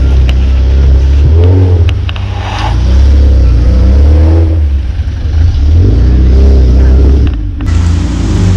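Jeep engine running under a heavy low rumble, its pitch rising and falling several times as it revs and eases off while driving.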